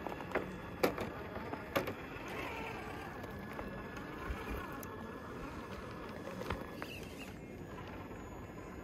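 Electric motor and gear drivetrain of a Traxxas TRX-4 scale RC rock crawler whining at low speed as it crawls over rock. A few sharp clicks and knocks of tyres and chassis on stone come in the first two seconds and once more later on.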